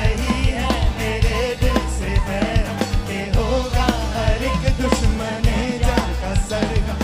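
Live band music: a man and two women singing together into microphones over electric guitar, bass guitar and drums, with a strong bass line and regular drum hits.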